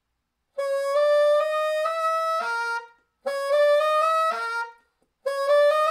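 Bassoon playing a rising chromatic run from high C-sharp toward high F, three times over. Each run breaks off at the top without the F sounding: with the whisper key off and the Jordan key vent open, the high F will not come out on the usual F-key fingering.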